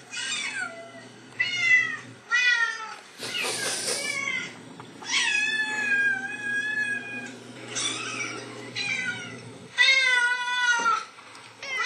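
Recorded cat meows played from a computer's speakers: a string of about eight separate high meows, one drawn out about five seconds in and a loud one near the end. A short hiss-like burst of noise comes about three seconds in.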